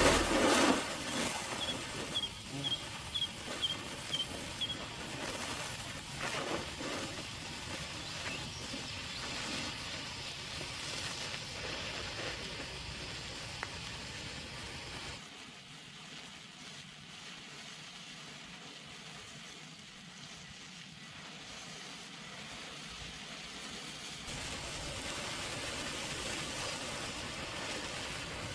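Matches burning along a fuse: a steady hiss, with a string of sharp crackles and pops in the first several seconds.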